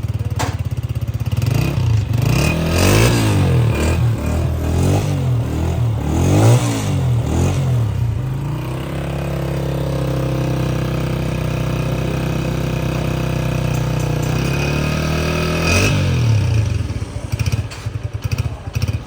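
Honda CG 125's single-cylinder four-stroke engine running, revved in a quick run of throttle blips over the first several seconds, then settling to a steady idle, with one more blip near the end.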